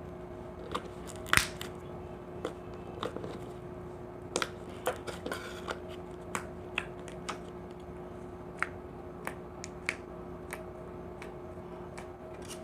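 Hands squishing and poking glossy slime, making scattered small clicks and pops at irregular moments. The sharpest comes about a second and a half in. A steady low hum runs underneath.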